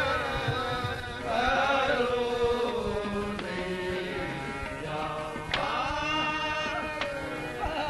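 Qawwali singing: a male voice holds long, sliding melismatic notes over a steady harmonium drone, with a sharp percussive stroke about five and a half seconds in.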